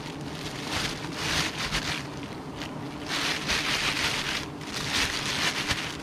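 Thin plastic bag rustling and crinkling in several bursts as a slab of wild honeycomb is handled in it.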